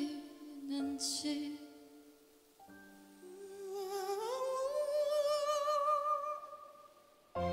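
Live ballad singing: a woman sings a held line into a microphone, then after a short lull a male singer's voice glides up and holds a long high note with vibrato over a soft sustained chord. A large choir comes in loudly just before the end.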